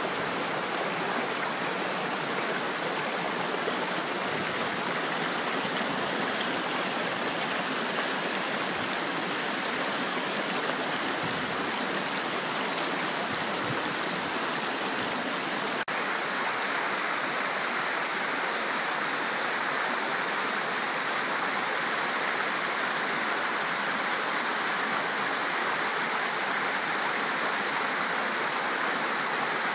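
Mountain stream rushing and splashing down rock cascades into pools, a steady roar of water. About halfway through the sound changes abruptly, with a brief dip, to a different stretch of falling water.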